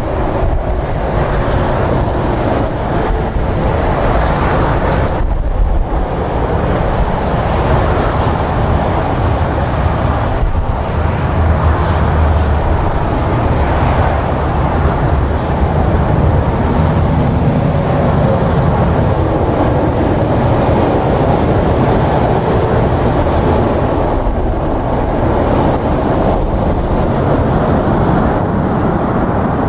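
Strong wind buffeting the microphone: a loud, steady rumbling rush that holds at the same level throughout.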